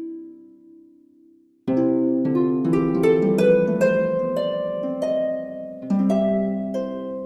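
Background music of plucked strings. A held chord fades away, then about a second and a half in a fuller run of plucked notes comes in and carries on.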